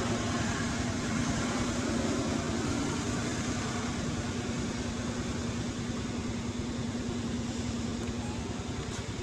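Steady low hum over an even hiss, holding unchanged throughout.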